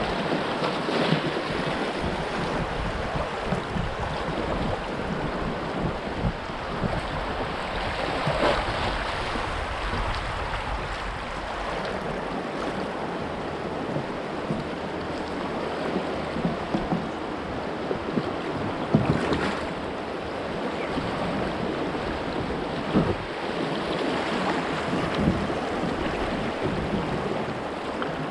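River water rushing through shallow rapids around a kayak, with paddle strokes splashing at irregular intervals. Wind buffets the microphone.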